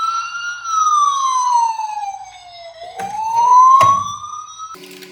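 Siren wailing in one slow cycle, its pitch falling for about two seconds and then rising again. Two short clicks come during the rise, and the siren cuts off near the end.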